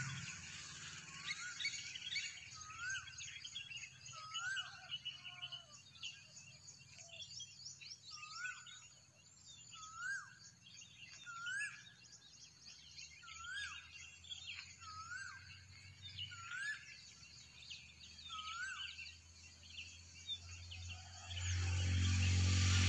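A cuckoo calling a repeated rising note about every second and a half, over a chorus of other birds chirping. A motor engine comes in loudly near the end.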